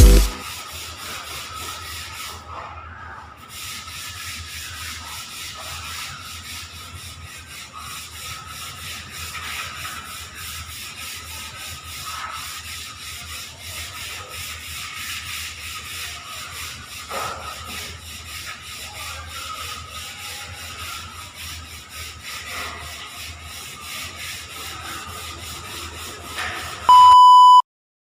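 Sandpaper rubbed by hand over a puttied wall: a steady, even rubbing, with a faint steady whine underneath. Near the end comes one short, loud electronic beep.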